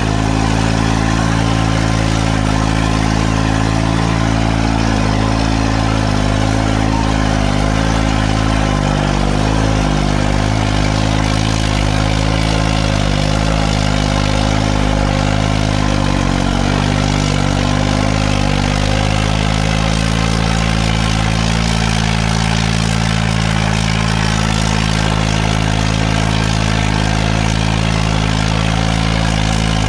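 New Holland 3630 tractor's three-cylinder diesel engine running hard under a heavy pull, throwing black smoke. The engine note wavers slightly through the middle, then holds steady.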